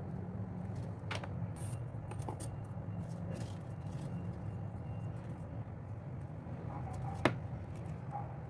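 Paper being handled on a table: faint rustles and light taps of card as a paper heart is fitted onto a folded card, with one sharp click a little after seven seconds, over a steady low hum.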